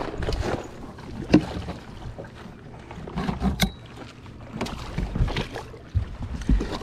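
Handling noise in a small metal fishing boat: irregular knocks and rustling as a landing net is grabbed and swung out, with the sharpest knock about a second and a half in. Water splashes near the end as the net goes into the water under a hooked striped bass.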